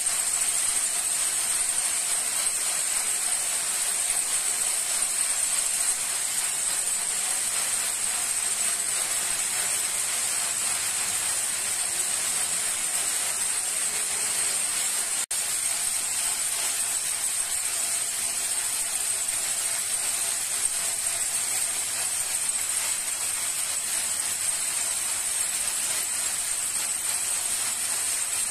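Several braiding machines running together, their bobbin carriers circling to give a steady high hissing whir. The sound cuts out for an instant about halfway through.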